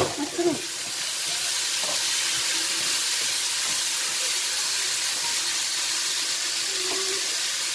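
Sliced bitter gourd, tomato and onion sizzling steadily as they sauté in a hot nonstick frying pan, stirred with a spatula.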